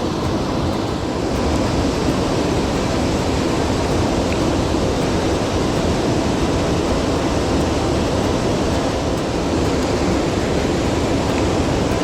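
Rushing water of a mountain stream, a steady loud noise.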